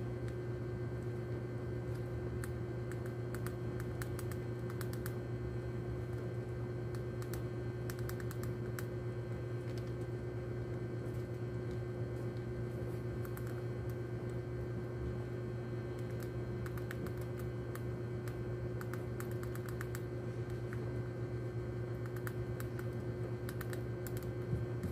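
Rat gnawing and chewing hard rodenticide bait pellets: runs of quick, small dry clicks in bursts every second or two, over a steady low hum.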